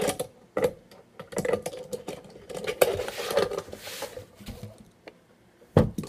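Tech Deck fingerboard and its plastic ramp clattering on a wooden table: irregular clicks and knocks as the board is ridden and set down and the ramp is shifted, with one sharp knock near the end.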